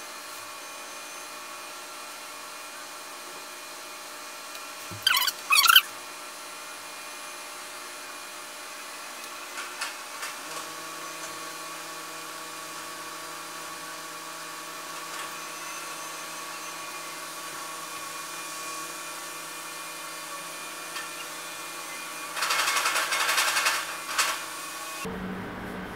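A steady mechanical hum made of several fixed tones, which shifts to a lower note about ten seconds in. Brief scratchy sounds come around five seconds in, and a louder rustling, scraping stretch comes near the end before the hum cuts off.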